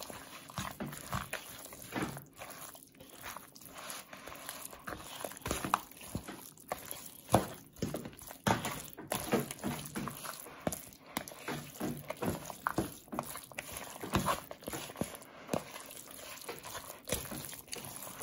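A spoon stirring a thick mayonnaise-bound chicken salad in a bowl: irregular wet squelching strokes with occasional sharper knocks of the spoon against the bowl, one louder about seven seconds in.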